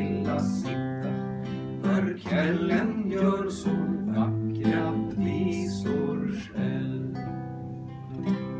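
Two acoustic guitars strumming the closing chords of a Swedish folk song. The last chord, struck about two-thirds of the way through, rings and slowly fades.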